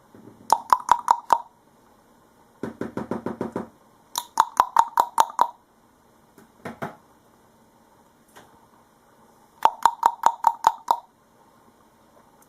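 A cockatiel rapping its beak against a hard surface in quick bursts of about six to eight taps that ring with a clear tone, three times over, plus one duller, lower series of taps a few seconds in. This tapping is the behaviour of a cockatiel in a good mood.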